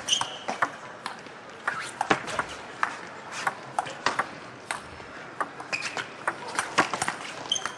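Table tennis rally: the celluloid ball clicking off the rackets and the table in an irregular run of sharp ticks, with a few short high squeaks.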